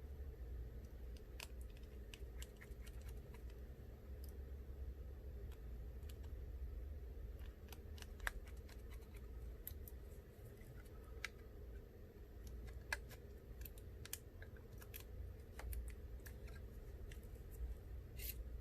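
Faint, scattered light clicks and taps of small repair tools and parts being handled while an iPhone 6s Plus is reassembled, over a steady low hum.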